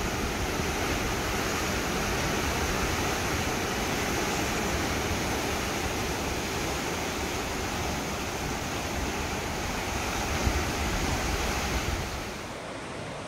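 Ocean surf surging and breaking over rocks in a narrow cove below, a steady rushing wash of water, with wind buffeting the microphone. About twelve seconds in it drops quieter and loses its top hiss.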